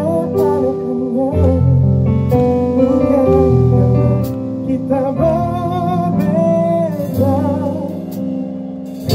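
Live band playing an instrumental jazz-gospel improvisation: sustained keyboard chords moving through E minor to G7sus, with an electric guitar playing a bending melody line over them.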